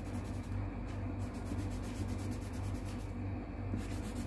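Colour pencil scratching on paper in repeated strokes as it colours in a printed number 4, over a steady low hum.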